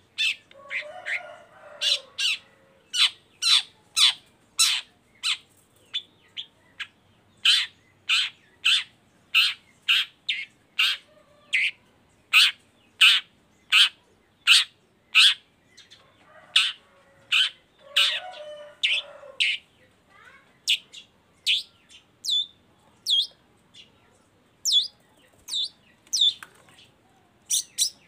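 Long-tailed shrike (cendet) calling loudly: a long run of short, sharp call notes, a little under two a second, broken twice by a lower, harsh chattering burst, near the start and about two-thirds of the way through. Near the end the notes come more sparsely.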